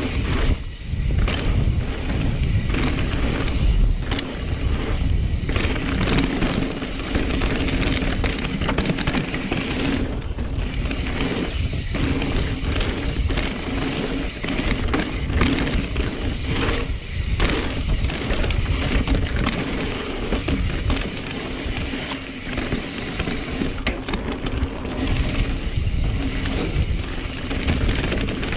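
Full-suspension mountain bike ridden along a dirt trail: continuous tyre noise and wind on the microphone, with the bike rattling and the rear hub's freewheel clicking.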